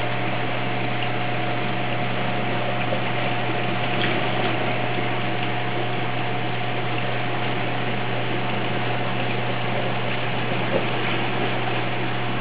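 Steady rush of circulating water and low motor hum from a reef aquarium's pumps, with a thin steady tone running through it.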